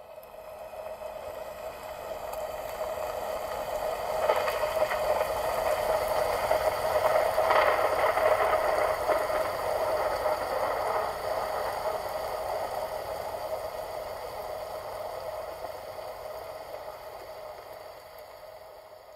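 Hand-held hair dryer running at a steady whine with rushing air, blowing wet acrylic pouring paint across a canvas. It grows louder over the first few seconds and fades out near the end.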